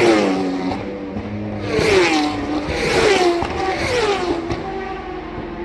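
Racing motorcycles passing at full speed one after another, each engine note dropping in pitch as it goes by: a bike just at the start, then three more about a second apart.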